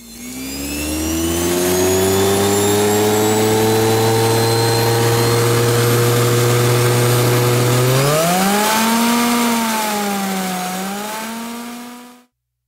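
Brushed universal washing-machine motor running on AC: its whine climbs quickly as it spins up, holds a steady pitch, then about eight seconds in rises, dips and rises again as the speed-control knob is turned. The sound cuts off abruptly just before the end.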